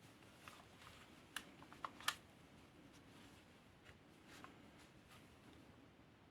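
A few faint clicks and taps from an ASG CZ-75D Compact spring airsoft pistol being handled, over near silence. The clicks bunch up about a second and a half in, and the loudest comes about two seconds in.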